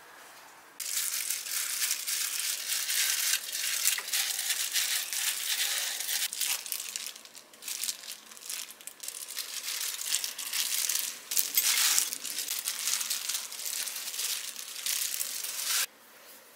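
Thin plastic glove crinkling and panko breadcrumbs crunching as rice balls are rolled by hand in egg and breadcrumbs: a dense crackle of small clicks that starts about a second in and stops abruptly near the end.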